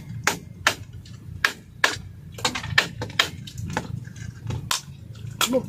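Hard crab shell being cracked open while eating: about a dozen sharp, irregular cracks and knocks, two or three a second, as a tough kupaw claw is pounded and broken.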